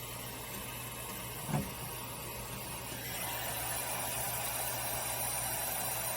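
Heat gun blowing steadily over vinyl wrap film, getting louder from about three seconds in, with one brief soft knock a second and a half in.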